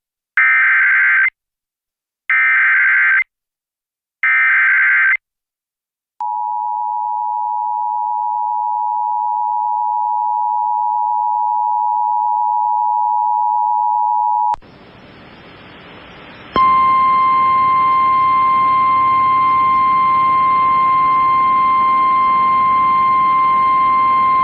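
Emergency Alert System broadcast signal for a severe thunderstorm warning: three one-second bursts of warbling digital header tones, then the steady two-tone EAS attention signal for about eight seconds. After a short stretch of hiss, the NOAA Weather Radio warning alarm tone, a single steady tone with a slight buzz, starts about 16 seconds in.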